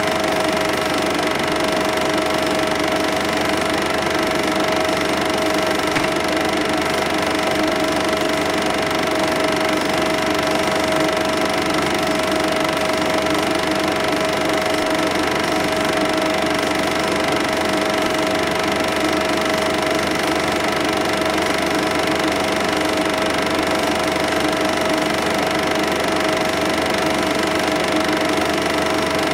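Cine film projector running: a steady mechanical whirr with a constant tone through it, never changing in level or pitch.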